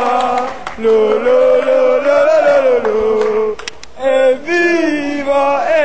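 Male football supporters singing a terrace chant together in long held notes. The singing breaks off briefly about three and a half seconds in, then starts up again.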